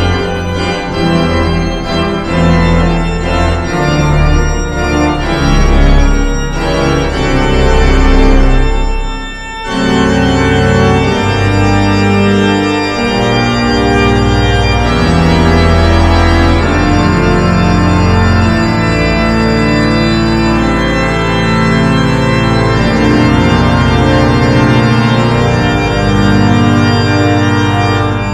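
Pipe organ playing: long-held chords over deep bass notes. There is a brief break about nine and a half seconds in before the music resumes.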